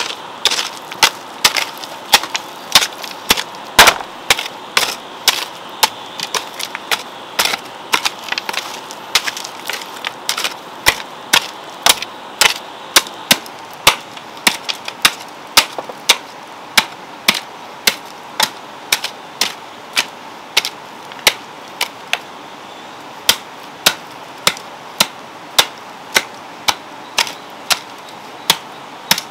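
Hand hoe chopping into garden soil, a sharp strike roughly twice a second in a steady rhythm, quicker and less even in the first several seconds.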